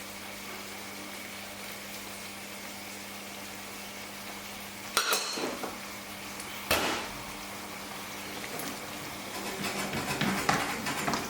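Curry simmering in a pan with a steady hiss and faint hum, broken by two sharp knocks of a utensil against the pan about five and seven seconds in, and a run of clattering near the end.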